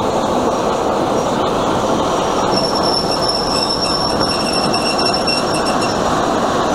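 Class 46 'Peak' diesel locomotive with its Sulzer twin-bank engine running as it rolls slowly past. From about two and a half seconds in until about six seconds, a high metallic squeal from the train rings out over it.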